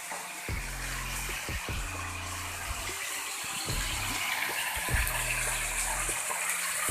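Snail meat frying with spice paste and sweet soy sauce in a pan: a steady sizzle with a few light knocks.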